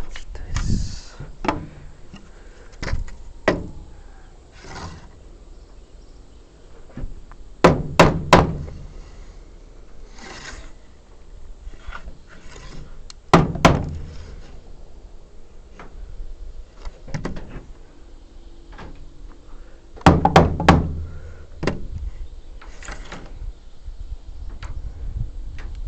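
Irregular knocks and thuds of wood being struck and handled while a timber frame is assembled with hand tools, with loud groups of two or three blows a few times and lighter taps between.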